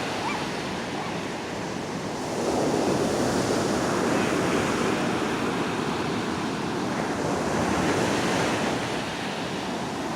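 Ocean surf breaking and washing on a beach, a steady rush that swells louder about two seconds in, with wind on the microphone.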